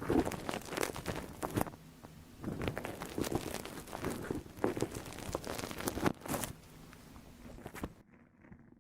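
Close-up ear-cleaning sounds: scratching, rustling and crackling against the microphone's ear in irregular bursts with short pauses. About eight seconds in, the sound turns quieter and muffled, losing its high end.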